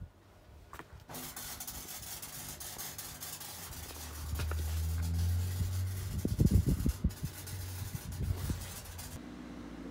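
Exhaust gas hissing from the 3-inch straight-through tailpipe of a Peugeot 307 SW 1.6 HDi four-cylinder turbodiesel with its back box deleted, heard right at the pipe, with a steady low engine rumble underneath. A few low thumps come about six to seven seconds in, and the hiss stops suddenly near the end.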